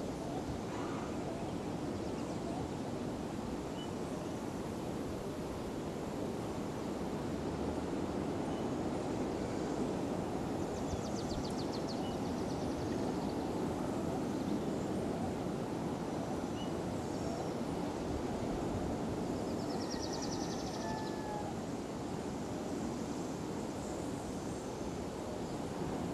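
Steady outdoor ambience on an open seaside hilltop: an even, low rushing noise. Twice, faint high trills are heard, about ten seconds in and again about twenty seconds in.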